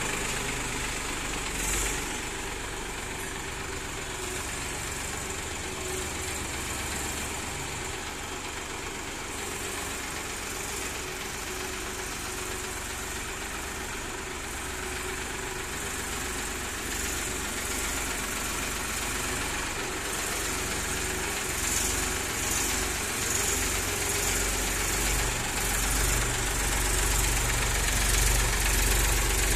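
Massey Ferguson 7250 tractor's three-cylinder diesel engine idling and running at low speed. It grows louder over the last several seconds as the tractor comes close.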